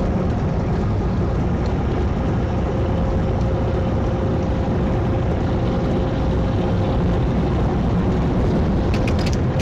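Steady engine and road rumble inside a semi-truck's cab cruising at highway speed, about 69 mph, with a faint steady whine. A few short clicks near the end.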